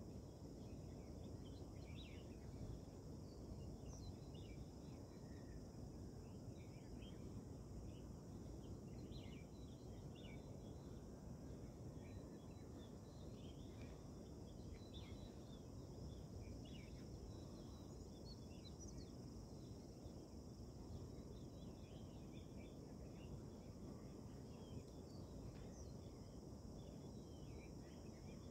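Faint dawn ambience: a steady low rush, a constant high insect drone, and many short bird chirps scattered throughout.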